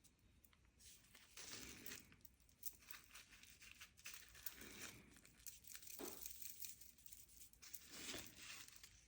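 Faint rubbing and scraping in several short strokes as a piping nozzle is pressed and worked over soft modelling paste to blend a seam.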